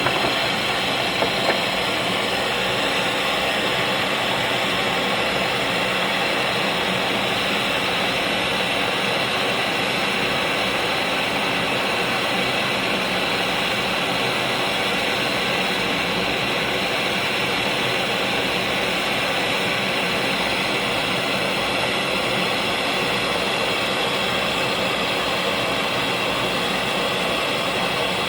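Hyundai Starex engine running steadily at idle, with two small clicks about a second in.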